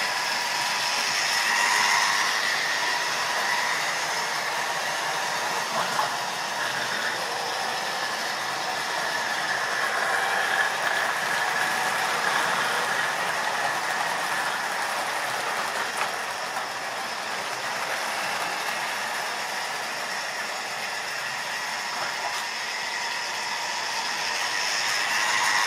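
Model railway trains running on the layout's track: a steady electric-motor whine with light wheel clatter and clicks over the rail joints. It swells a little as a train passes close, about two seconds in and again near the end.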